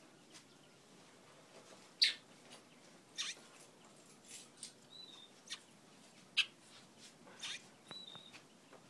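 Large-billed seed finch (twatwa) calling: about five short, sharp chip calls at irregular intervals, the loudest about two seconds in, with two brief whistled notes at about five and eight seconds.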